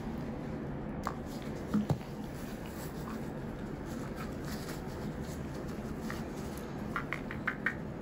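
Steady low room hum with a single faint click about a second in, the snip of suture scissors cutting a dermal stitch at the knot. A few soft clicks follow near the end.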